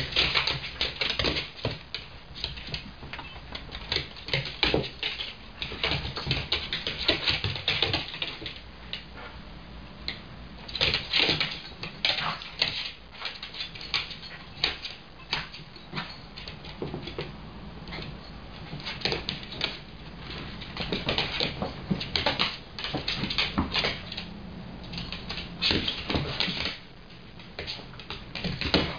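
Two dogs playing on a hardwood floor: a long, irregular run of claw clicks and scuffling paws, mixed with the dogs' own play noises, louder in flurries.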